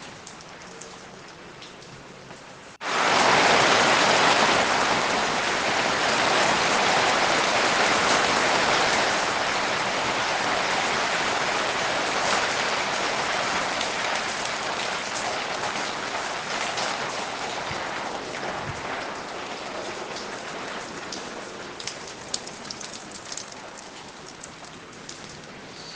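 Rain falling: a light patter, then about three seconds in a heavy downpour comes in suddenly and slowly eases back to light rain, with single drops ticking near the end.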